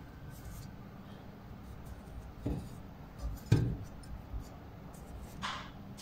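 Hands handling the bare shaft of an air-conditioner indoor fan motor: two small knocks about two and a half and three and a half seconds in, the second the louder, and a short scrape near the end.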